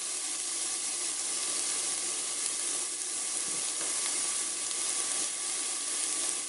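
Diced onions and orange bell pepper sautéing in hot avocado oil in a stainless steel skillet, a steady sizzle.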